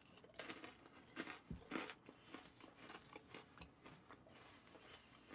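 Faint crunching as a person bites into and chews a chilled Cadbury Crunchie bar: milk chocolate around a crisp honeycomb toffee centre. A scatter of small crunches, the loudest between one and two seconds in.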